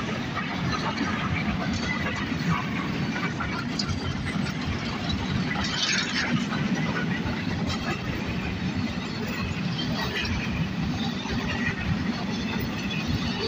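Freight train wagons running past at speed close by: a steady rumble and clatter of wheels on the rails, with a brief high-pitched squeal about six seconds in.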